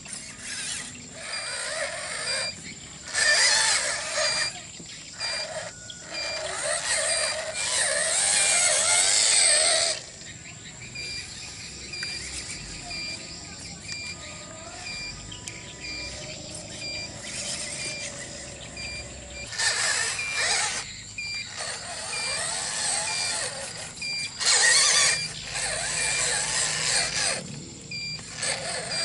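Small electric motors and gearboxes of radio-controlled toy trucks whining in bursts of a second or two, several times, with quieter stretches between.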